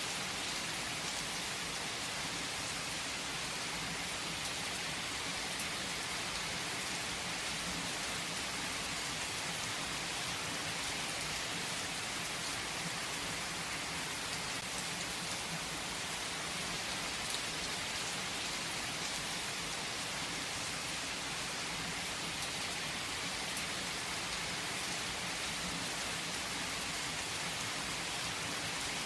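Heavy rain falling steadily on tree foliage, a dense even patter with scattered individual drops.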